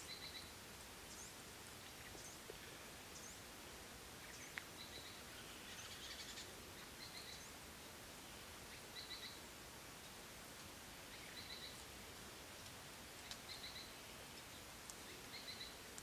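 Faint bird calls: short clusters of high chirps repeating every one to two seconds, with a few quick, thin, downslurred notes in between.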